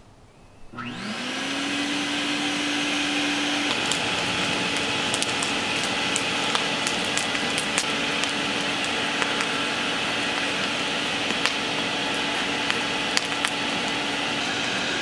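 An electric air blower starts up about a second in, its pitch rising to a steady whine, and runs on, forcing air through a hose into a wood-burning forge. From about four seconds in, the burning wood crackles and pops over it.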